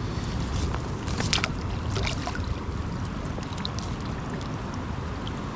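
Steady rushing of a high, fast-flowing river mixed with wind on the microphone, with a few scattered small clicks and ticks over it.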